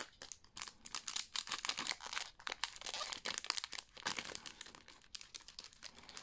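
Foil wrapper of a Pokémon trading card booster pack crinkling and crackling in the hands as it is worked open.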